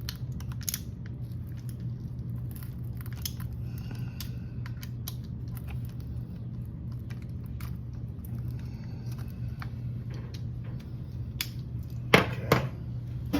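Small metal clicks and ticks of screws being tightened with a hand tool into an RC truck's metal motor mount, over a steady low hum. There are two louder clicks about twelve seconds in.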